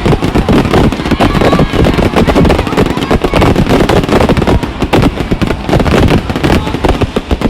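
Fireworks and firecrackers going off in a dense, rapid barrage of sharp bangs and crackles, many per second, loud throughout.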